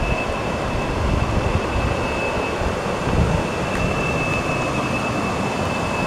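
Water rushing over small rapids in a shallow rocky river, a steady noise with a low rumble underneath.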